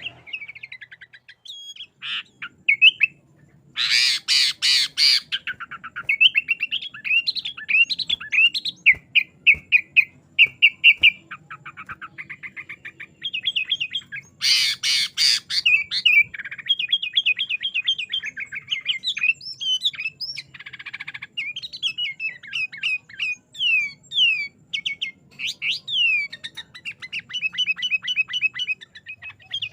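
Sooty-headed bulbul singing energetically in long runs of quick chirping and whistled notes. There are two loud bursts of rapid notes, about four seconds in and again around fourteen seconds.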